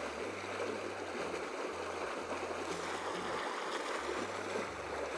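Steady rushing of flowing water from a small stream.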